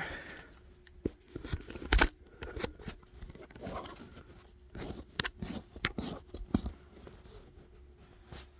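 Scattered clicks, taps and rustling of hands pushing a wiring cable and its plastic parts into place, with one sharp click about two seconds in.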